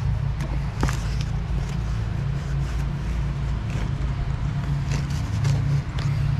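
Steady low mechanical hum, with scattered light clicks and scrapes from a vent separator being pushed and fitted into an RV window frame by hand.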